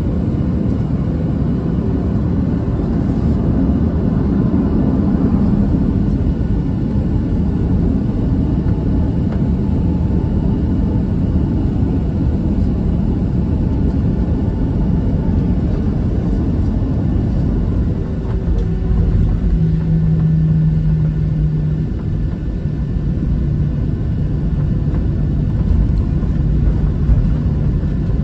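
Boeing 737-700 heard from inside the cabin while taxiing, its CFM56 engines at idle under a steady low rumble. A low steady hum comes in about two-thirds of the way through and fades before the end.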